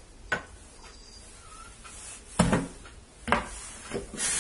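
A few sharp knocks and clunks, the loudest about halfway through, as a kitchen knife is put down in a plastic basin in a stainless steel sink. Near the end the kitchen faucet comes on and water runs into the sink.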